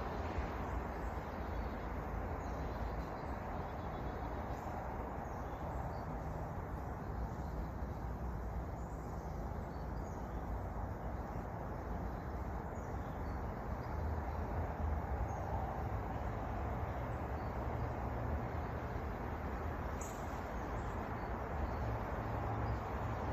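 Steady outdoor background noise with a low, fluctuating rumble, faint high chirps scattered through it, and one short tick near the end.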